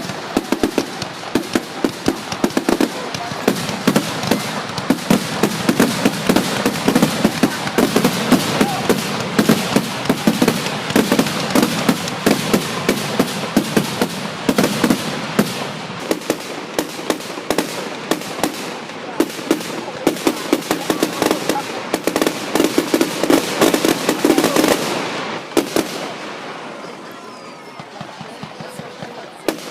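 Fireworks crackling and popping in dense, rapid volleys of sharp reports, many a second, that stop abruptly about 25 seconds in.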